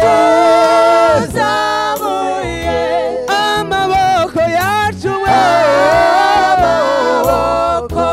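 Gospel worship song with a singer holding long, wavering notes over steady accompaniment, the lyrics in Kinyarwanda.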